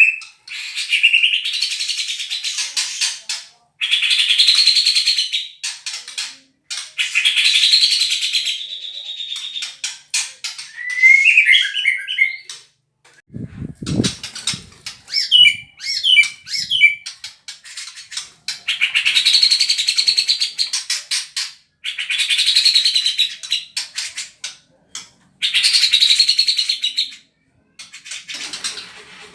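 White-rumped shama (murai batu) singing rapid, harsh 'tembakan' bursts in the style of a cucak jenggot: dense scratchy phrases of about two seconds each, repeated every few seconds, with a few warbled whistle notes between them. A low thump comes about 14 seconds in.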